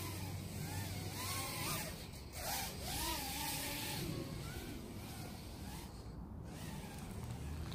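KingKong/LDARC 110GT micro racing quadcopter's brushless motors and propellers whining in flight, the pitch swinging up and down as the throttle changes.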